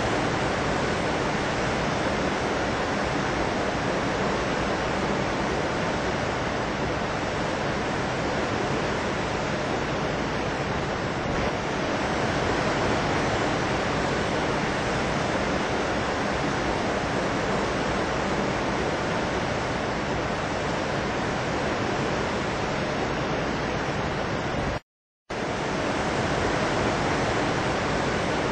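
A steady, even rushing noise with no gusts or changes in level, cut to silence for about half a second near the end.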